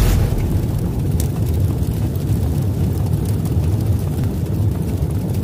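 Intro sound effect: a brief whoosh at the very start, then a loud, steady, deep rumble.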